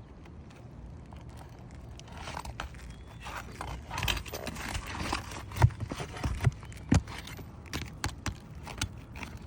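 Scraping on asphalt shingles with several sharp knocks between about four and seven seconds in, as roofing nails are worked loose and pulled from under the shingle tabs.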